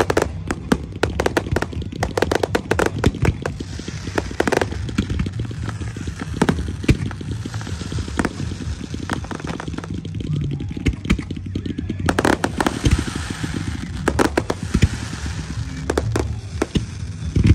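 Fireworks display in full barrage: a rapid, irregular string of sharp bangs from bursting shells and mines, with crackling between them. The bangs come thickest about two-thirds of the way through.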